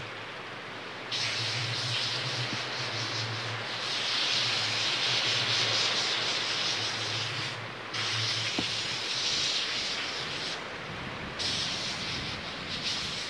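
Izu Kyuko Line train running, a steady rushing noise over a low rumble; the rumble fades about nine seconds in.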